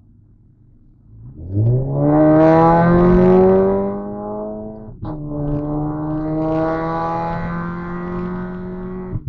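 Volkswagen Jetta 2.0 TSI's turbocharged four-cylinder engine accelerating hard from a cruise: the revs climb steeply, a quick upshift about five seconds in briefly cuts the sound, then the revs climb again before easing off near the end.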